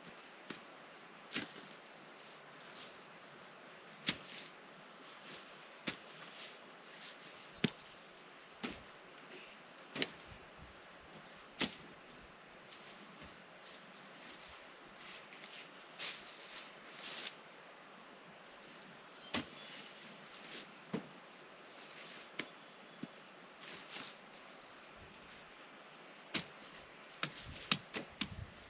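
Steady high-pitched insect drone with a faint pulsing chirr above it, broken every few seconds by sharp clicks and knocks, the loudest about a quarter of the way in.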